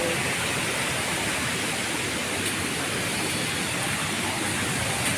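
Waterfall in spate, swollen by rain, with a steady rush of falling water.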